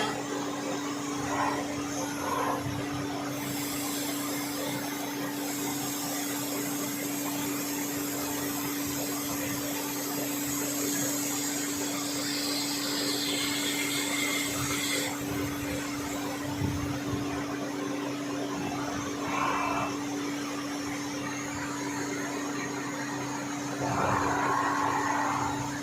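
CNC lathe running as it turns a tractor's first gear: a steady motor hum with a high hiss over the first half, and a slightly louder stretch near the end.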